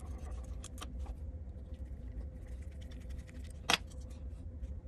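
One sharp clack about three and a half seconds in as powder-coated aluminium extrusions are picked up and knock against each other, amid faint handling clicks over a low steady hum.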